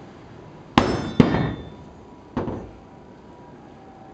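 A long metal bar is rammed down onto a truck's cargo-bed floor, giving sharp metallic clangs with a short ring: two strikes close together about a second in, then a lighter third a second later.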